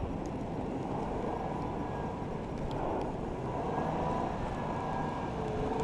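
Jeep Wrangler on 37-inch tires driving through deep snow, its engine running steadily under load while the axles, skid plates and front end plow and drag through the snow.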